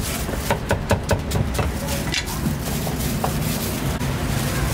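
Cooking utensils clicking and knocking against cookware several times in the first two seconds, over a steady low rumble.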